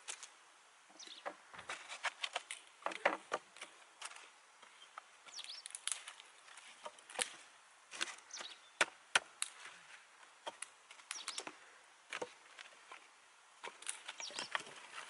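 Dry sticks and twigs knocking and clattering against each other as they are handled and laid in a pile, a scatter of irregular sharp wooden clicks.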